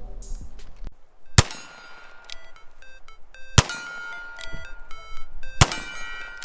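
Three gunshots about two seconds apart, each a sharp crack with a short ring after it, over background music made of quick electronic tones.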